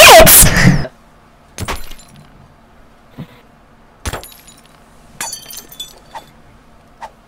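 Glass panes of a door being smashed: a loud sound cuts off about a second in, then a quieter run of separate sharp cracks and clinks of breaking glass, a second or so apart.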